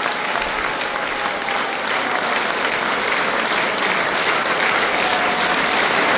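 A large concert audience applauding steadily.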